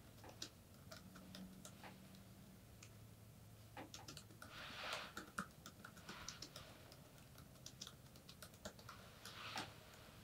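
Typing on a computer keyboard: soft key clicks in irregular runs. There are two brief soft rushes of noise, one about halfway through and one near the end, over a faint steady hum.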